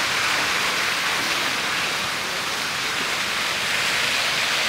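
Steady, even hiss of falling water with no breaks.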